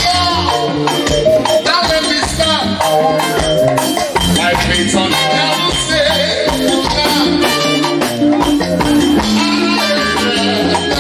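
Live band music with shaker or maraca-like rattle percussion keeping a steady beat over bass and keyboard lines.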